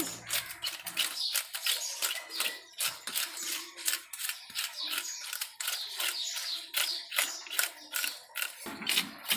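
A large fish being scaled by hand: a wooden-handled scraper rasped repeatedly along the scales, in quick, scratchy strokes at about three a second.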